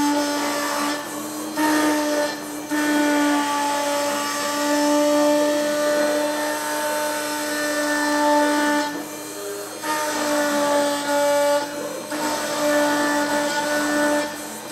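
CNC engraving machine's spindle running steadily with a whine as its cutter engraves lettering into an engraving-laminate plate. The cutting noise drops away briefly several times.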